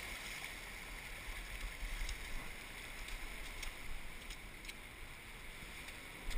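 Steady hiss of shallow surf washing over wet sand, with a few faint clicks between about two and five seconds in.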